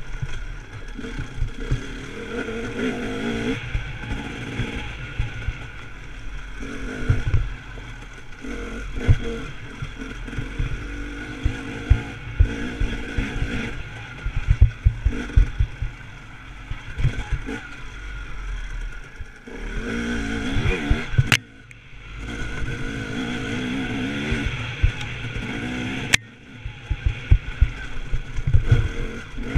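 Enduro motorcycle engine being ridden hard over a rough forest trail, its pitch rising and falling as the throttle is opened and closed, with frequent low thumps. The sound drops off sharply twice near the end.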